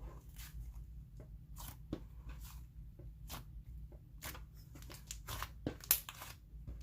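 Thick, inflated butter slime being squeezed and worked, giving off irregular crackling sizzles as trapped air pops, with a few louder crackles near the end.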